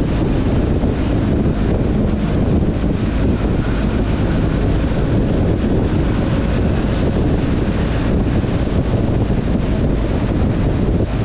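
Wind rushing and buffeting over a helmet-mounted GoPro Hero9's microphone on a moving motorcycle, steady and heavy throughout. Under it runs the BMW R 1250 GS's boxer-twin engine.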